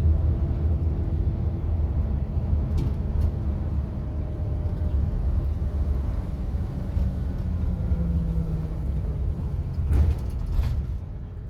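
Heard from inside a MAN coach on the move: a steady low rumble of engine and road noise, with a few sharp knocks or rattles, the loudest about ten seconds in. It gets quieter near the end.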